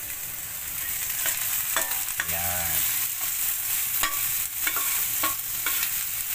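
Ginger strips and chopped onion sizzling in hot oil in a stainless steel pan, stirred with a metal spatula that scrapes and taps against the pan several times.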